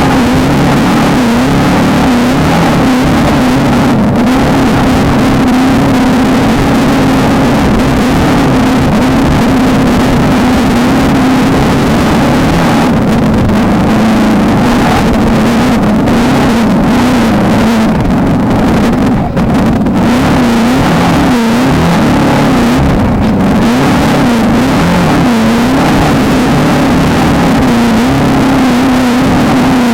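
A VW Beetle off-road race car's air-cooled flat-four engine running hard, its pitch rising and falling again and again as the revs change, over a constant rushing noise.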